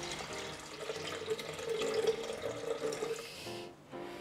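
Water pouring in a steady stream from a glass bottle into a plastic blender jug, stopping near the end.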